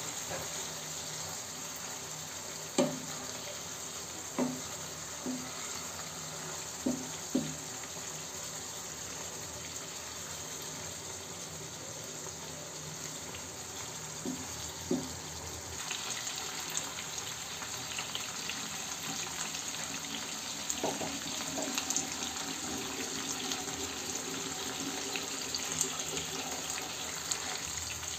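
Koi fish parcels wrapped in bottle gourd leaves simmering in sauce in a frying pan, a steady bubbling sizzle. A wooden spatula knocks against the pan several times in the first half. The sizzle turns brighter about sixteen seconds in.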